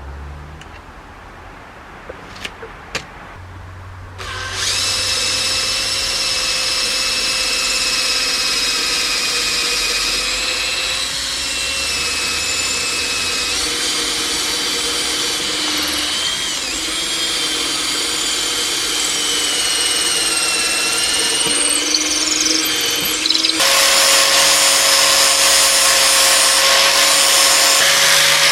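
A few clicks, then a vintage Metabo grinder's electric motor starts about four seconds in and runs steadily with a whine. Near the end the sound turns louder and noisier, with the whine shifting in pitch.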